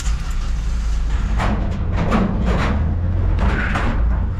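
A 3.2-tonne camper van driving slowly off a car-shuttle train wagon, its engine running with a steady low rumble. The tyres roll over the wagon's deck plates and ramp, with rattles and clunks coming and going through the drive.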